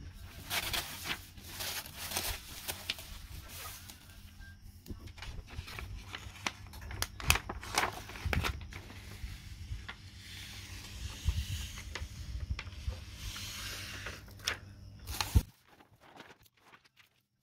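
Plastic DTF transfer film sheets rustling and crinkling as they are handled, with scattered sharp clicks, over a low steady hum that stops suddenly near the end.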